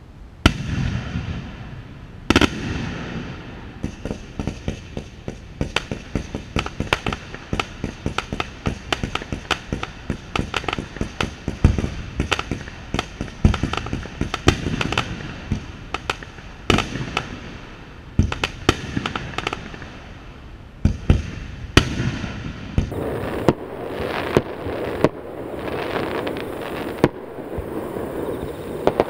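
Fireworks display heard close to the launch site: a loud bang just after the start and another about two seconds later, then a dense run of rapid bangs and crackling. Near the end it changes to a fuller, steadier crackle with fewer sharp bangs.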